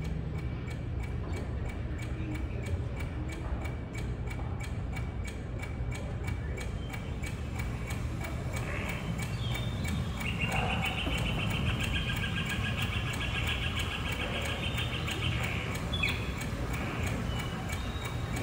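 Steady clock ticking from the clock tower show's sound track, over a low hum. From about halfway in, a high, rapid rattling sound joins for around six seconds.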